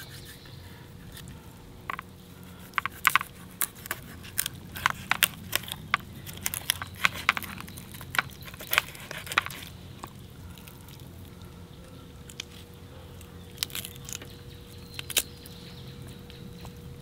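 A knife clicking and tapping against a metal plate as raw catfish is cut into chunks. There is a quick run of sharp clicks through the first half and a few more a little before the end.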